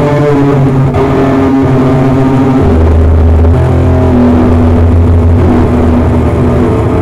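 Loud live gothic rock music: sustained, droning notes shifting in pitch every second or so, with a heavy deep bass coming in about two and a half seconds in.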